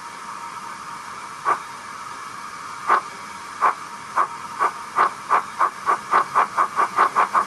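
Model steam locomotive's DCC sound decoder playing steam hiss, then exhaust chuffs starting about a second and a half in and quickening steadily, as of the engine pulling away and gathering speed.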